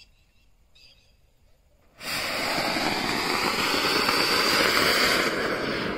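Large colourful anar (flower-pot fountain firework) igniting about two seconds in and spraying sparks with a loud, steady rushing hiss that starts abruptly and begins to die away at the very end.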